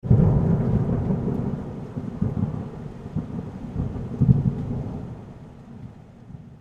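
A low rolling rumble that swells a few times and then fades out.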